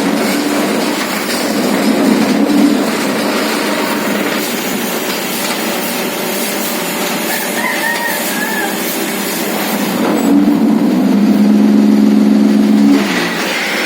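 A machine running with a steady noise, with a rooster crowing over it; a loud held crow comes about ten seconds in and lasts about three seconds.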